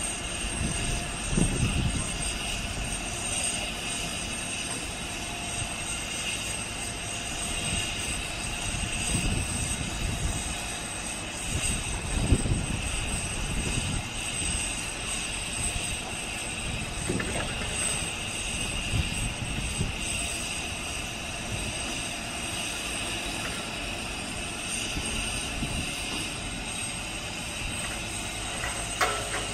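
Truck-mounted knuckle-boom crane's engine and hydraulics running steadily under load, with a constant high whine over the drone and low rumbles that rise and fall.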